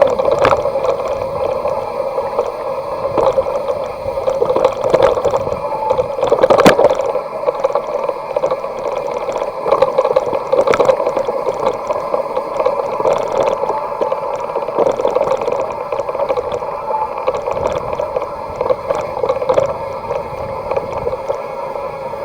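Saturn Atlas 2.0 bicycle's rear hub buzzing steadily as the wheel freewheels, with a few sharp knocks from the ride.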